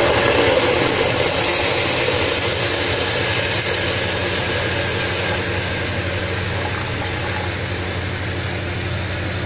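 Water poured into a hot aluminium pressure cooker of ghee-fried broken wheat, hissing and bubbling. The hiss is loudest at first and slowly dies down.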